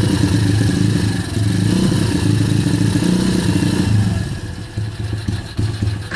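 Kayo YX140 pit bike's single-cylinder four-stroke engine running with the throttle held fixed. The revs hunt up and down instead of holding steady. After about four seconds the revs sag and it runs ragged and stumbling, then stops right at the end: the hunting idle and sputtering fault the owner is showing.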